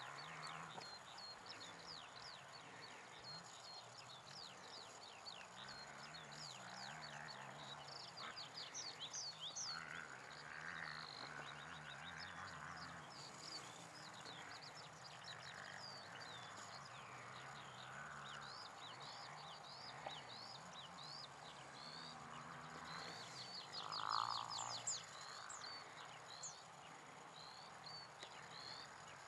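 Faint outdoor ambience of birds singing in many quick high chirps and trills, over a low croaking chorus, with one louder call late on.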